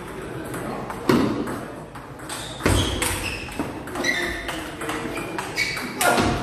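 Three sharp hits, about a second and a half or more apart, the middle one loudest. Between them come several short, high squeaks.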